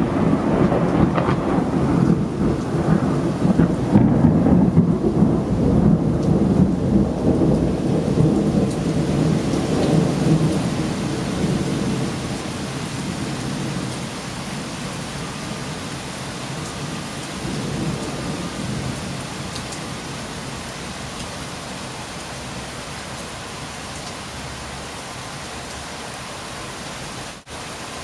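Thunder rolling and rumbling over steady rain, loudest in the first ten seconds or so and then slowly dying away, leaving the even hiss of rain falling.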